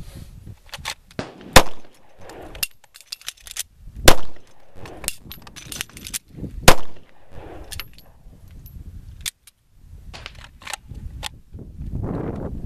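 Three shots from a Smith & Wesson M&P 40 .40-calibre semi-automatic pistol, about two and a half seconds apart. Between and after the shots come quick metallic clicks and clacks, the magazine changes and slide of a speed-reload drill.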